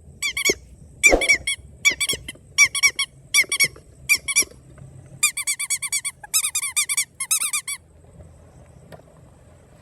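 High-pitched squeaking in quick runs of three to five short squeaks, repeated several times, which stops near the end.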